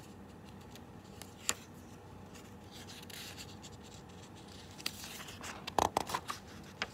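Quiet room tone with a single click about a second and a half in, then the page of a large picture book being turned near the end: a couple of seconds of paper rustling and flapping.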